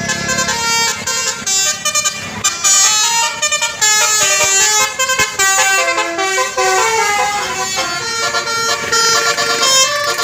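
A bus's basuri multi-tone air horn playing a 'telolet' melody: a tune of horn notes that step up and down in quick succession, several often sounding together.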